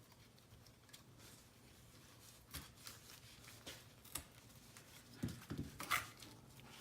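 Faint handling sounds: scattered light clicks and rustles as adhesive tape is peeled back off a ribbon cable on a car navigation screen assembly. The clicks come a little more often in the second half.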